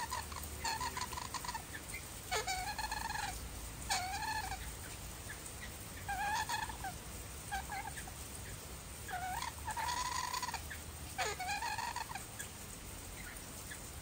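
A tame large-billed bird calling in a series of short squawks, about eight of them spread irregularly across the span, each under a second and dipping slightly in pitch.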